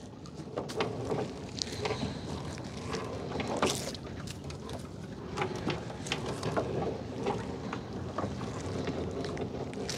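Scattered small knocks, clicks and rustles of a gill net being hauled and cleared of debris aboard a small boat, over a faint steady low hum.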